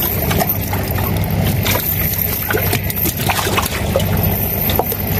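Water trickling and dripping off a wet cast net with chain weights as it is handled and fish are picked out of it, with many small taps and rustles, over a steady low hum.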